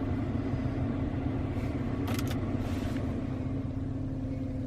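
GMC Canyon pickup idling with its climate-control blower running, a steady low hum heard inside the cab. Two quick clicks about two seconds in.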